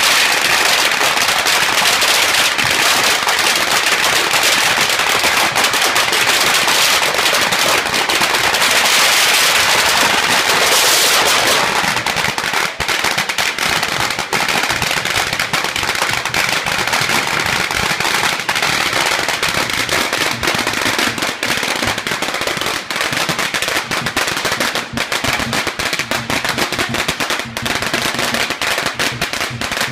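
Strings of Chinese firecrackers going off in a dense, continuous rattle of bangs. About eleven seconds in, the rattle thins to a quick run of more separate cracks.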